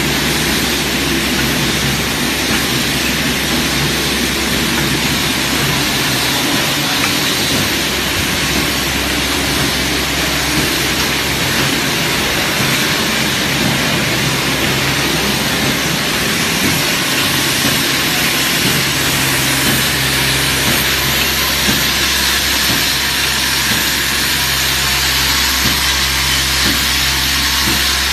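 Automatic bag-on-valve aerosol filling and crimping line running: a steady low machine hum under a constant, even hiss.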